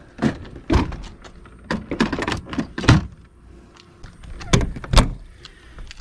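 Knocks, thumps and clatter of someone moving about inside a camper van and going out through its door: about a dozen sharp, uneven knocks, the loudest near the middle and about five seconds in.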